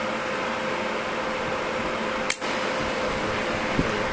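Steady whir of a switched-on Weiro SUPERTIG315EX inverter TIG welder's cooling fan, with a faint steady hum under it. A single sharp click comes a little over two seconds in.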